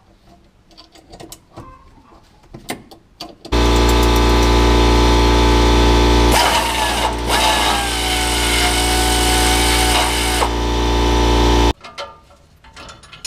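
A few light tool clinks, then a power tool starts about three and a half seconds in, runs steadily and loudly for about eight seconds, and cuts off suddenly.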